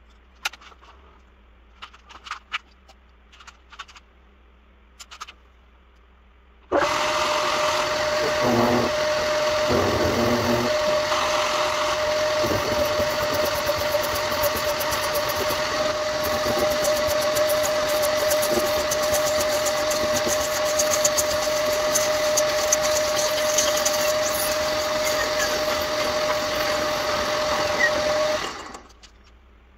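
Old metal lathe: a few light clicks of handling, then about seven seconds in the lathe starts abruptly and runs steadily with a constant whine, and near the end it is switched off and winds down.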